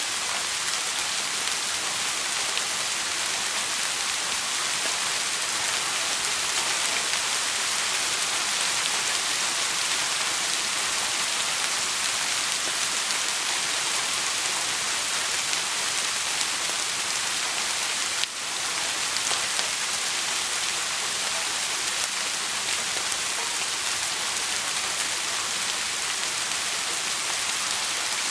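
Steady rain falling as a dense, even hiss, with a brief dip in level about two-thirds of the way through.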